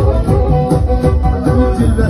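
Live Black Sea horon music played loud through a sound system: a kemençe melody over a steady beat, with no singing at this moment.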